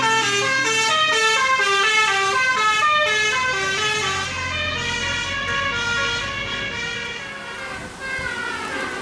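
Bus 'basuri' telolet air horn playing a quick tune: short held notes that step up and down in pitch, several sounding together. A low engine rumble rises about halfway through as the horn tune fades toward the end.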